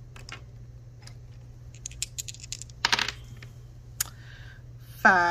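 Two small dice rattled and tossed onto a game sheet on a desk: light clicks, then a short clatter about three seconds in as they come to rest, and a single tick a second later. At the very end comes a short vocal sound that dips and then rises in pitch.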